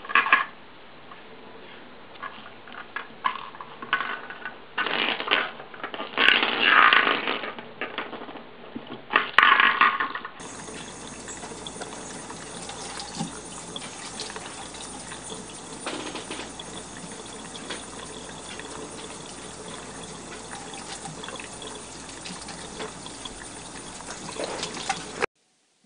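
Kitchen tap running a thin, steady stream of water into a stainless steel sink, from about ten seconds in until it cuts off suddenly near the end. Before it comes a stretch of intermittent louder sounds.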